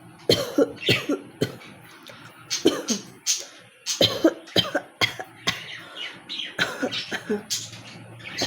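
Person coughing over and over for a coughing challenge: short, sharp coughs in quick runs of two to four, about two or three a second, with a brief pause about two seconds in.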